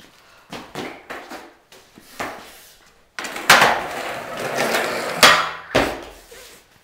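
Skateboard on a concrete floor: a few knocks early on, then a loud stretch of wheels rolling over the concrete. The wooden deck hits the floor sharply several times as it clatters and comes loose.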